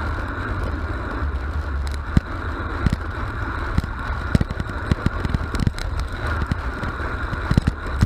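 Wind rushing over the microphone of a camera on a road bike descending at speed, with a deep rumble and many irregular knocks from the tyres and mount over the road surface.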